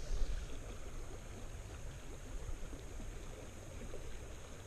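Shallow river water flowing and burbling, with wind buffeting the microphone, heaviest in the first second and then easing.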